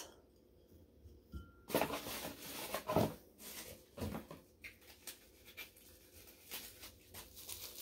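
Faint rustling of packing material with a few soft knocks, as items are handled and set down in a box; it starts about two seconds in.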